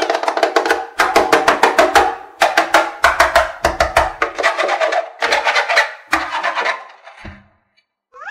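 Background music: a fast run of pitched percussive strikes, several a second, that fades out about seven seconds in. A brief gliding tone follows right at the end.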